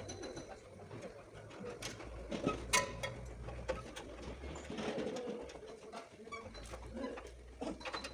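A bird cooing in low, drawn-out calls, with scattered light clicks and knocks.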